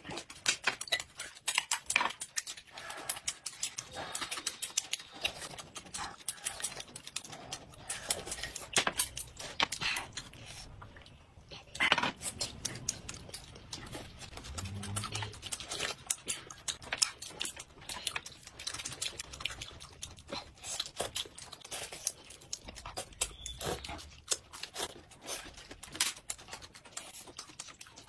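Close-miked eating sounds: wet chewing and lip-smacking, with many short, irregular crunchy clicks as fried food is bitten and chewed.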